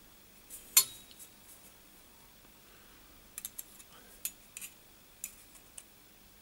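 Thin sheet-metal weld test strips clinking and tapping against a steel workbench as they are handled: one sharp clink about a second in, then a scattered run of lighter clicks and taps.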